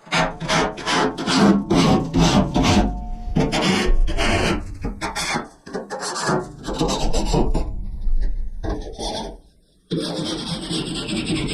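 Hand scraping of sludge and patina off the inside of a steel commercial smoker, in quick rasping strokes about three a second. After a brief pause near the end, a continuous rasping sound follows.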